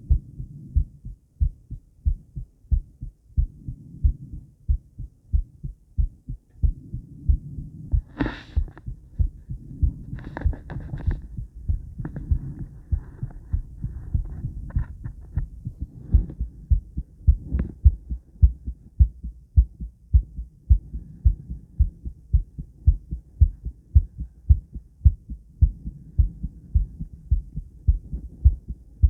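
A woman's heartbeat at rest before exercise, beating in a steady, regular rhythm of low thumps. A few brief rustles come through about 8 and 10 seconds in.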